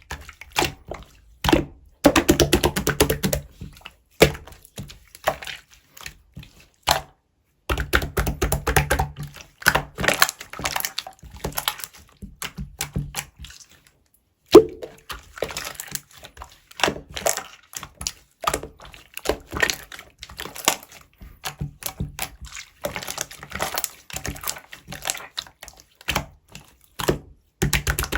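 Slime being squished, pressed and folded by hand, giving irregular runs of small crackling clicks and pops from trapped air. A single sharp pop, the loudest sound, comes about halfway through.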